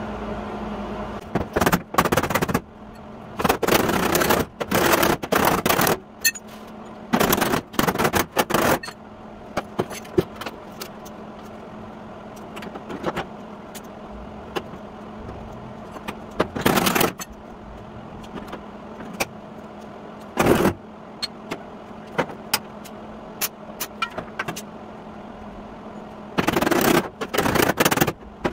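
Hammer blows on the sheet steel of a 1953 Chevy truck's rear fender, roughing out its dents. The blows come in short bursts of rapid strikes with pauses between, over a faint steady hum.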